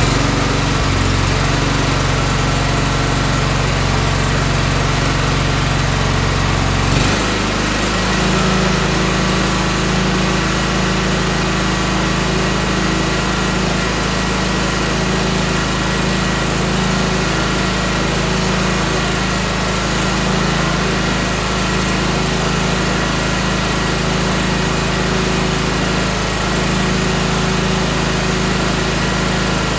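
Tractor engine running steadily. About seven seconds in there is a click, and the engine's pitch steps up and holds at the higher speed.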